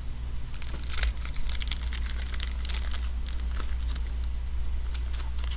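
Crinkling and rustling of baseball card pack wrappers and cards being handled, a run of small crackly rustles, over the low steady hum of an electric fan.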